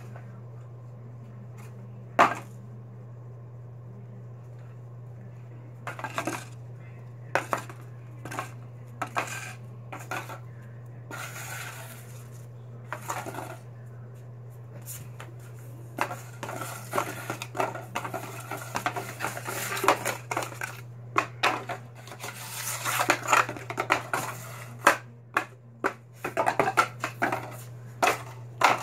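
Clinks, knocks and rustles of small objects being handled on a hard floor close to the microphone, scattered at first and then dense and louder over the last dozen seconds. One sharp click comes about two seconds in. A steady low hum runs underneath.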